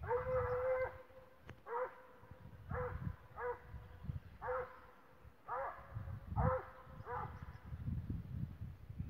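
A series of about eight short pitched animal calls: a long, even one first, then shorter calls roughly a second apart, each bending down in pitch at its end, over a low rumble.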